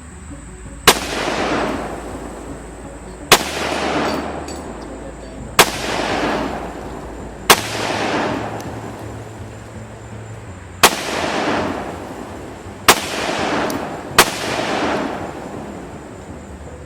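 Seven gunshots fired at an unsteady pace, about two seconds apart, each followed by a rolling echo that dies away over a second or so.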